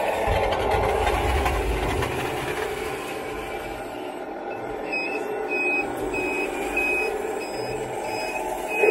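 RC construction machine's sound module playing a reversing alarm, short high beeps about every two-thirds of a second from about halfway through, over a steady simulated diesel engine drone. A low rumble sounds in the first two seconds.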